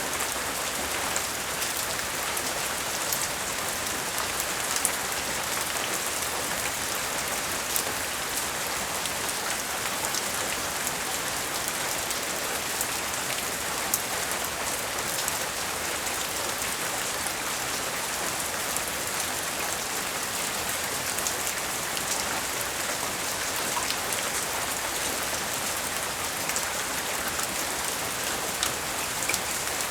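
Steady rain falling, with scattered sharper ticks of single drops hitting a surface.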